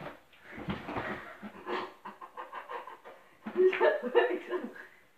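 Panting and breathless laughter in quick short gasps, getting louder and more voiced a little past halfway.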